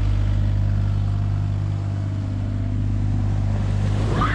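Bobcat excavator's diesel engine running steadily. A voice calls out near the end.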